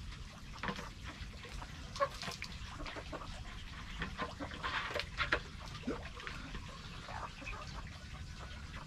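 Plastic poultry drinker being handled, with scattered clicks and knocks and water sloshing inside it, busiest about halfway through; hens cluck now and then.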